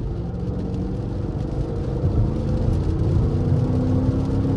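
Camaro SS's 6.2-litre V8 under way with a deep exhaust rumble. The engine note rises slowly in pitch as the car gently accelerates.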